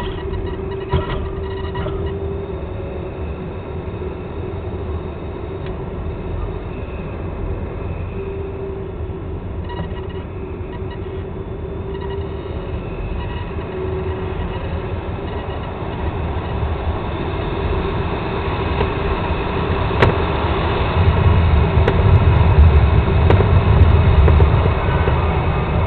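Airflow rushing over a 1/3-scale Ka6E radio-controlled glider, heard from inside its cockpit, with a faint steady hum. The noise grows louder, with a deep rumble, over the last few seconds as the glider comes down low over the grass.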